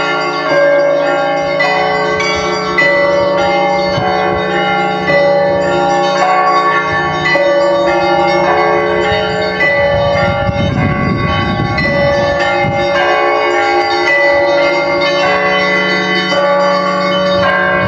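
Russian Orthodox church bells ringing in a continuous peal: bells of several pitches struck in quick, overlapping strokes over a steady deep tone.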